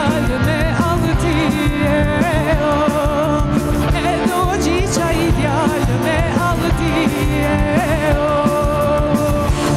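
A woman singing a wavering, held melody into a microphone over a live band, with drum kit and piano.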